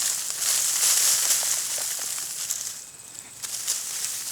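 Rustling and crackling of a dying potato plant's dry foliage and the soil around it as the plant is pulled up by hand, easing briefly about three seconds in.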